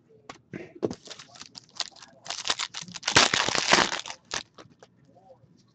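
A hockey card pack's wrapper being torn open and crinkled by hand: scattered crackles that thicken into a loud, dense crinkling in the second half, then die away near the end.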